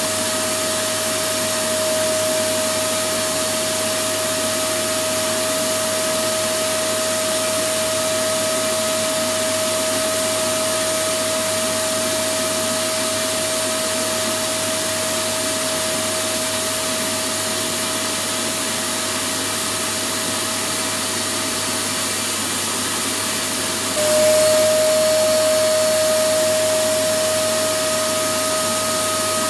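Electric vacuum cleaner running steadily: a continuous rushing hiss with a steady whine over it. About three-quarters of the way through, the whine drops slightly in pitch and the sound briefly grows louder, then settles back.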